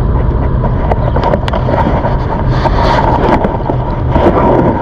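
Wind buffeting the microphone and the rumble of a ZOOZ electric bike rolling along a path, with scattered rattling clicks from the bike.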